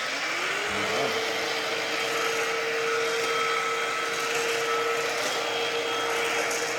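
Ozito PXC 18V cordless stick vacuum running: its motor whine rises in pitch as it spins up over about the first second, then holds a steady tone over the rush of air.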